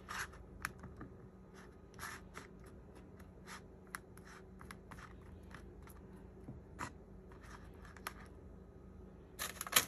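Light scrapes and taps of a utensil slathering thick sauce onto chicken of the woods mushroom pieces on a paper plate, scattered through, with a louder rustle just before the end. A faint steady low hum runs underneath.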